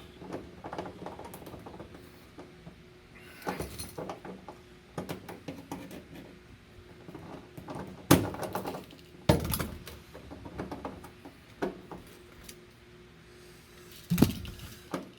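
Scattered small metallic clicks and knocks from a pop rivet and rivet gun being worked at a seatbelt anchor hole, with sharper knocks about eight, nine and fourteen seconds in. The rivet will not go in because the hole is a little too small.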